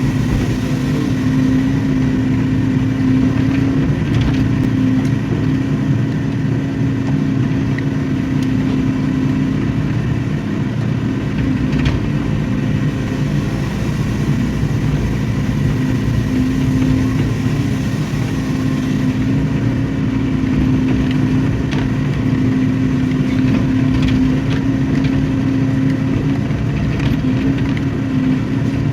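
Hydraulic excavator's diesel engine running steadily at working revs: a constant drone with a strong steady tone that weakens now and then, with a few faint knocks.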